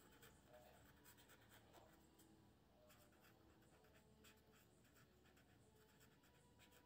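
Faint scratching of a pen writing on paper, in short strokes.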